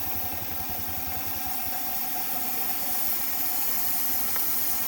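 Miniature steam engine driving a model sawmill, running with rapid low exhaust beats over a steady hiss of steam. The hiss grows a little louder near the end.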